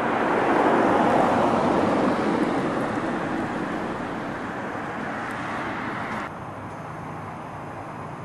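A vehicle passing, its rushing noise swelling about a second in and slowly fading, then dropping away abruptly about six seconds in to a quieter steady hiss.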